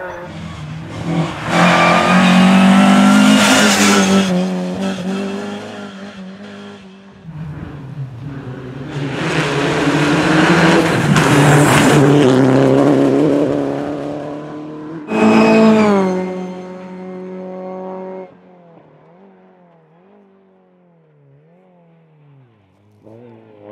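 Rally cars passing close at full throttle, one after another: engines revving high and shifting through the gears, loudest about two seconds in and again around ten seconds in, with a Citroën DS3 rally car among them. From about eighteen seconds in, a distant rally car's engine rises and falls over and over as it brakes and accelerates through a run of bends.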